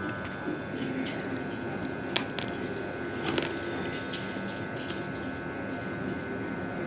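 Slate pencil being chewed: a few sharp crunches, the clearest about two and three seconds in, over a steady high hum.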